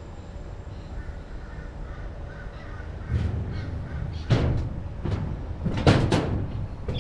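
Footsteps on a metal-plate walkway ramp, several heavy thudding steps starting about three seconds in, with faint bird calls before them.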